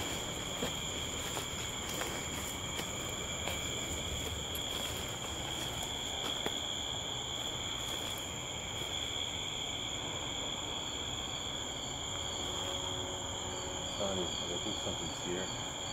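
Crickets trilling steadily at a high pitch, with faint scattered ticks in the background.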